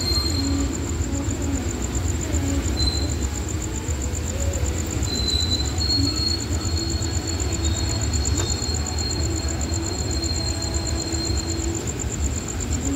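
Freight train of tank wagons rolling slowly past with a steady low rumble of wheels on rails. A thin, high wheel squeal sets in about five seconds in and holds for several seconds. A steady high-pitched whine runs underneath.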